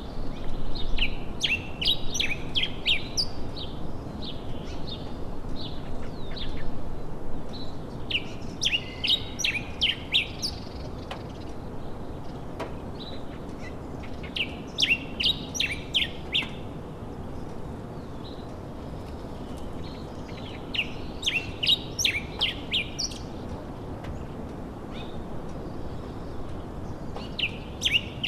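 Small birds chirping in clusters of quick high notes, each cluster lasting two to three seconds and coming back about every six seconds, over a steady low background hiss.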